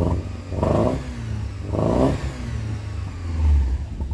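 VW Golf GTI 16v's K-Jetronic-injected 16-valve four-cylinder engine running with a steady low rumble and blipped twice, about a second apart. The owner says the engine still has a misfire.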